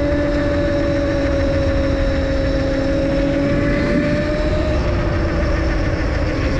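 Motor of a 72-volt, 5000-watt electric pit bike whining at a steady pitch while cruising, the pitch drifting up slightly and easing back down, over a low rush of wind and tyre noise on the head-mounted camera's microphone.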